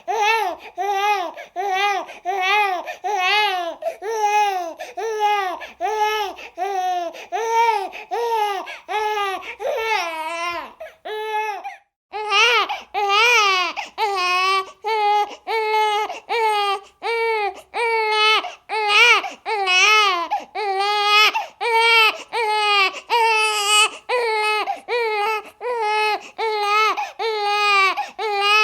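Baby crying in a steady rhythm of short, repeated wails, each rising and falling in pitch, with a brief pause about eleven seconds in.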